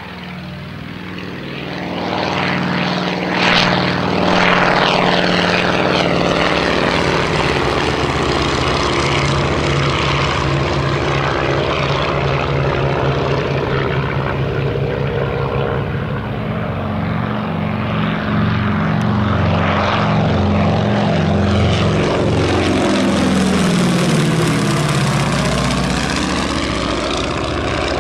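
Avro Anson Mk I's two Armstrong Siddeley Cheetah radial engines running at high power as the aircraft climbs out and flies past. The engine note swells about two seconds in and stays loud. Its pitch slides audibly as the aircraft passes near the start and again about three quarters of the way through.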